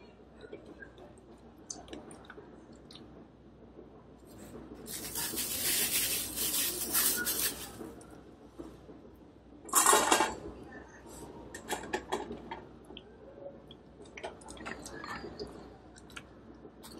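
A few seconds of rustling, then dry dog kibble poured with a clatter into a stainless-steel dog bowl, followed by scattered light clicks against the bowl.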